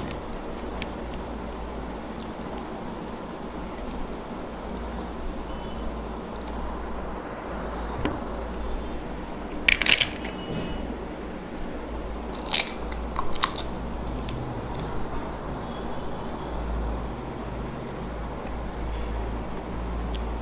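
Eating sounds of rice and curry mixed and eaten by hand, over a steady low hum. There are a few sharp crunches of a papad being broken and bitten, the loudest about ten seconds in and again around thirteen seconds.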